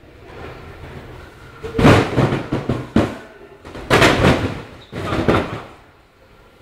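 Stacked cardboard cartons toppling and crashing onto the floor and onto each other: four bursts of thuds and bangs, starting about two seconds in and coming roughly a second apart.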